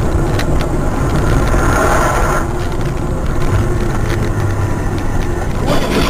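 A car on the move: a steady rumble of engine and road noise, with a few faint clicks.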